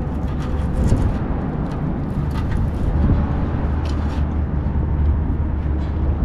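Steady rumble of traffic on the bridge, with a few sharp clicks of a knife chopping pilchards for chum on the concrete ledge.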